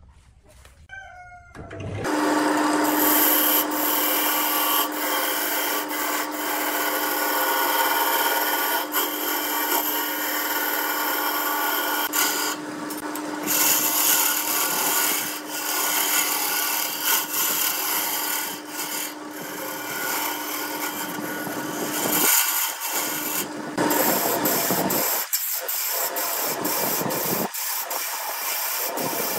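A wood lathe starts up about two seconds in, and a turning tool cuts into the spinning blank of glued pencils and epoxy resin: a loud steady scraping, shearing noise over a steady hum. Near the end the cutting comes in short passes with brief gaps.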